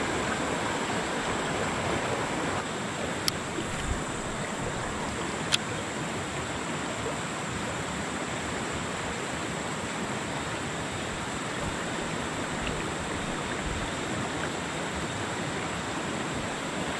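Mountain river rushing over rocks through shallow rapids, a steady even rush of water, with two faint sharp clicks about three and five and a half seconds in.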